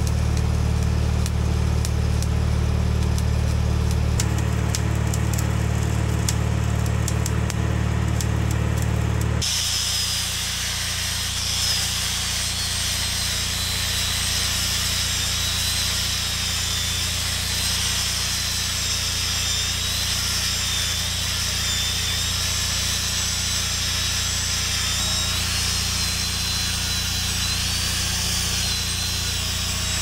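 Stick welding on steel: the arc crackles and sizzles as a vertical weld bead is run. For about the first nine seconds an engine runs steadily underneath, with scattered crackles over it. Then the sound switches abruptly to an even, hissing sizzle.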